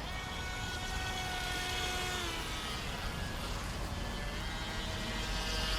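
Electric motor of a VolantexRC Vector 28 RC boat whining as the boat runs on the water. The pitch drops about two seconds in and climbs again later as the throttle changes.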